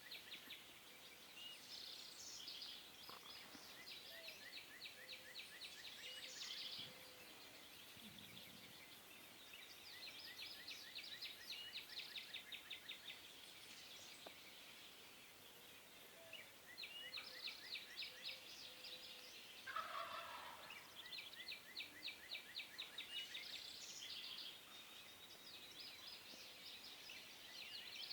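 Faint birdsong of rapid, high trills, repeated again and again. A wild turkey gobbles once, about twenty seconds in.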